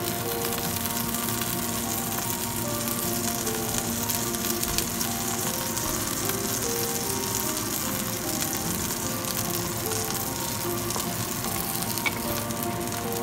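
Chive pancakes frying in oil in a nonstick pan: a steady sizzle. Soft background music plays underneath.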